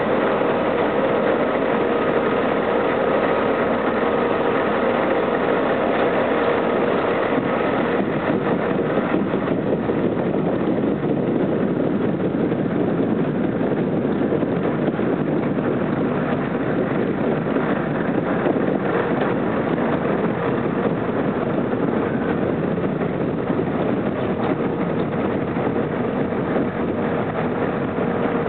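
Steady drone of a tomato harvester's engine and conveyors working alongside, with a scatter of small knocks as tomatoes fall from the discharge conveyor into the trailer tank.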